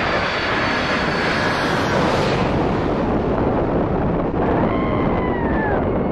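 Jet roar of a Boeing 747-400 passing low overhead on final approach and landing, loudest about two seconds in as it crosses overhead. A high whine slides down in pitch about five seconds in.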